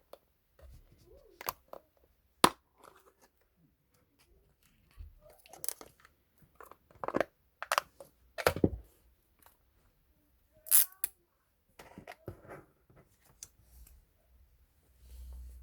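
Hands packing a photocard: plastic sleeves and packing materials rustling and crinkling, with short sharp rips and clicks at irregular intervals.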